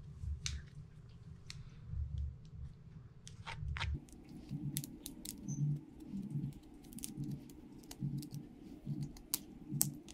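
Fingernails picking and snapping thin excess edges off a cured epoxy resin tray: an irregular scatter of small sharp clicks and scratches, with the tray being handled.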